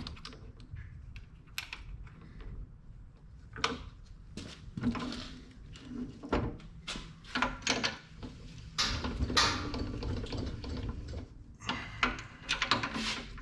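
Drill press spinning a plastic workpiece while a carbide cutter is pressed against it by hand to turn it, giving irregular scraping cuts over the steady low hum of the press. The cuts come in uneven bursts and are heaviest about two-thirds of the way in.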